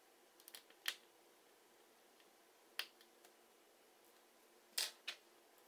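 A few light, sharp clicks and taps of small repair tools and tiny metal parts being handled: a quick cluster about a second in, a single click near three seconds, and two close together near five seconds.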